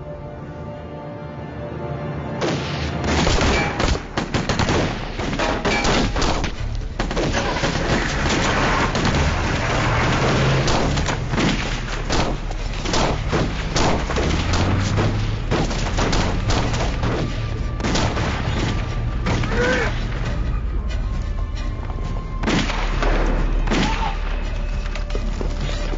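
Gun battle: rapid, dense volleys of gunshots with heavier booms over background music, starting about two seconds in.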